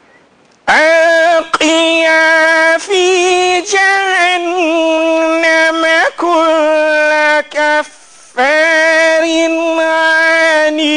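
A man's voice giving the adhan, the Islamic call to prayer, loud and close to the microphone: long held phrases that wind up and down in pitch, separated by short breaths. It starts about a second in, with a longer pause near the eight-second mark.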